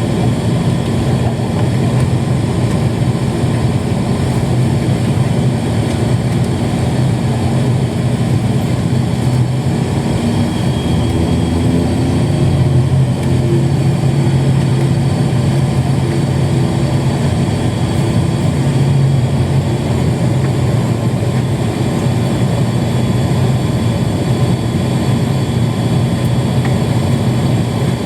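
Steady drone of a turboprop airliner's engines and propellers heard inside the cabin, a low hum with a constant pitch over rushing noise.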